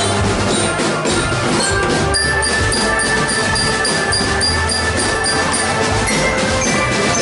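Marching drum band playing: drums beating under held melody notes, with a regular high ticking figure of about three strokes a second coming in about two seconds in.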